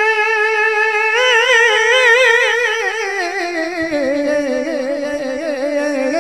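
A naat singer holding one long sung note. It is steady at first, begins to waver about a second in, then slides down to a lower pitch and is held there with a slight waver.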